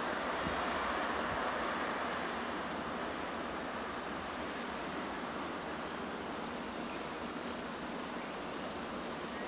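A nighttime chorus of insects, crickets or katydids, keeping up one steady, high, evenly pulsing trill. Underneath runs a steady rushing background noise from the street, a little louder in the first couple of seconds.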